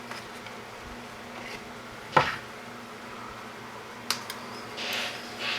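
Small handling sounds of wires and parts on a workbench: one sharp click about two seconds in, two quick light clicks a little after four seconds, and brief rustles near the end, over a steady electrical hum.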